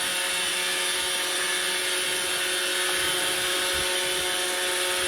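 iRobot Roomba robot vacuum running, a noisy, steady motor whir with a few held tones over an even hiss.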